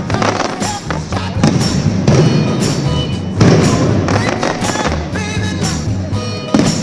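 Display fireworks shells bursting one after another, sharp bangs a second or two apart with the loudest about midway, while music plays underneath.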